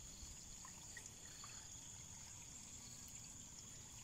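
Faint trickling water, with a steady high-pitched insect drone over it and a few light ticks.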